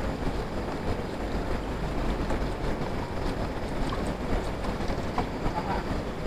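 Steady low rushing noise of river water and wind on the microphone, with a few faint clicks about four and five seconds in.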